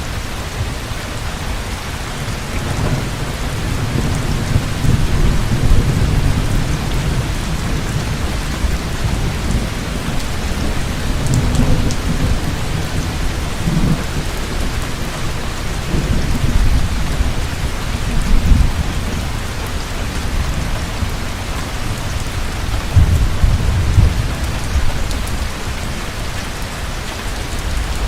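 Heavy rain falling steadily with a constant hiss, under low rolling thunder that swells and fades several times.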